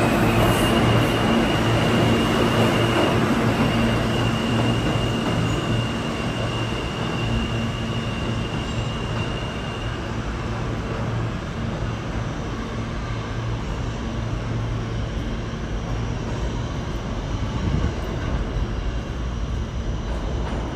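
R160 New York City subway train in the station: the train's steady rumble and low hum, with a high steady squeal for about the first ten seconds.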